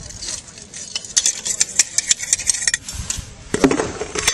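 A metal rod scraping and clinking inside the firebox of a miniature live-steam locomotive: a quick run of sharp metallic clicks and scrapes, with a louder knock and a few more clicks near the end.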